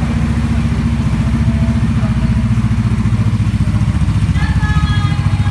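Rebuilt motorcycle engine, its crankshaft freshly reworked, idling steadily with an even, fast pulse and no knock audible: the repair has cured the knocking.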